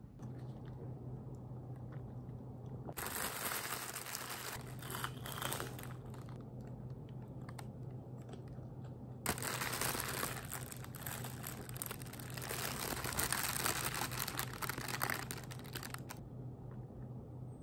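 Thin plastic food bag crinkling as it is handled around a flaky pastry, in two stretches: a short one about three seconds in and a longer one from about nine seconds. A low steady hum runs underneath.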